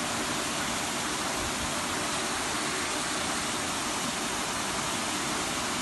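A steady, even rushing hiss with no breaks or separate events.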